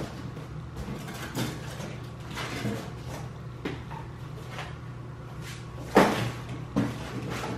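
A large cardboard shipping box and its contents being handled: rustling and scattered knocks as items are pulled out of it, the loudest knock about six seconds in.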